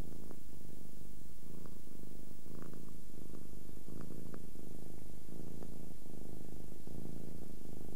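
A longhaired domestic cat purring steadily, the purr swelling and fading with each breath about once a second.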